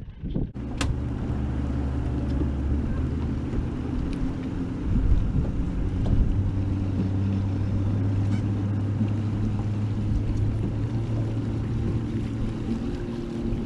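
Boat motor running steadily, a low droning hum with a slight shift in pitch about six seconds in. A single sharp click comes just under a second in.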